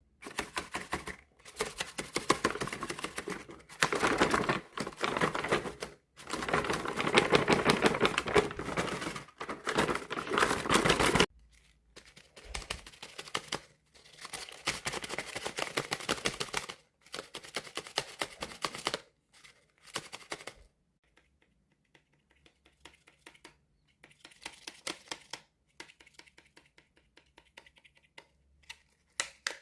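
Folded paper dragon puppet worked by hand, its paper body and jaws snapping and crinkling as a rapid clatter of dry paper clicks. It is dense and steady for about the first ten seconds, then comes in shorter bursts with pauses.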